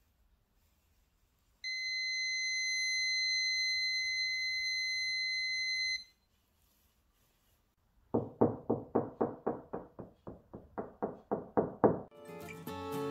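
A Parkside wall detector in stud mode gives one steady high beep for about four seconds, its signal that it has found a stud behind the plasterboard. A few seconds later comes a quick run of knocks on the plasterboard wall, about four a second for four seconds. Acoustic guitar music starts near the end.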